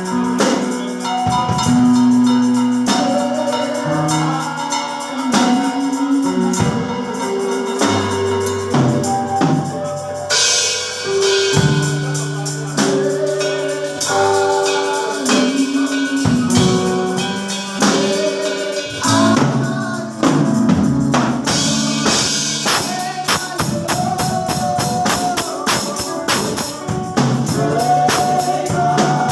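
Gospel praise music: sustained keyboard chords with tambourine and drums, and some singing. The percussion grows busier and faster about two-thirds of the way through.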